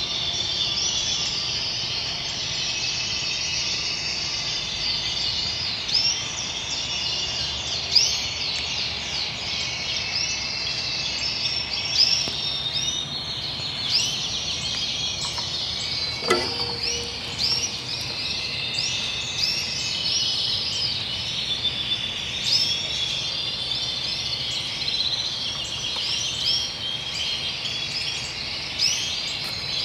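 Canaries singing, a steady stream of high rapid trills and chirps, with a single knock about halfway through.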